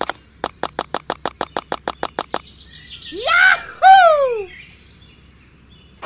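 A fast, even run of sharp clicks, about seven a second, as tiny clay bricks are set down one by one in a row. The clicks stop about two and a half seconds in, and two loud, sweeping bird-like calls follow.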